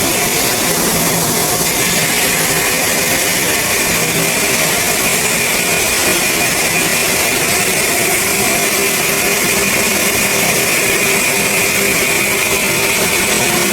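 Stone-processing machinery running steadily: an even hiss with a steady high whine.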